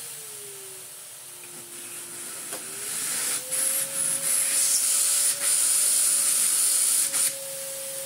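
An old Electrolux vacuum cleaner running, switched on after years in storage and still working. Its motor whine sags in pitch about a second in and climbs back around three seconds. A loud rush of air comes in at about three seconds, breaks off briefly a few times, and drops away just after seven seconds.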